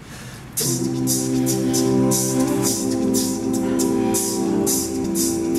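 Male a cappella group singing a wordless opening: a held chord of several voices in harmony that starts about half a second in, over a vocal-percussion beat of short hiss-like hits, about two or three a second.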